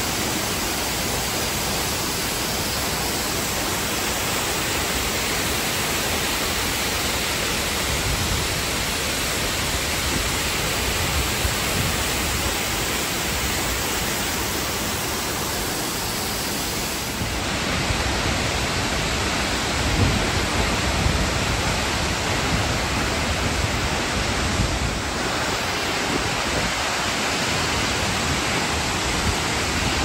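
Waterfalls and a rocky mountain stream rushing: a steady, dense hiss of falling water. The tone shifts slightly about halfway through, and a few low bumps come in the second half.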